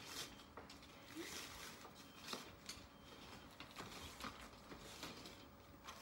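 Faint rustling and crinkling of tent fabric in short bursts as a tent pole is pushed through its sleeve by hand, with a few light clicks.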